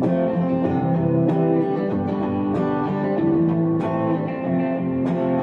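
Music: an instrumental guitar intro of plucked and strummed chords in a steady rhythm, with no vocals.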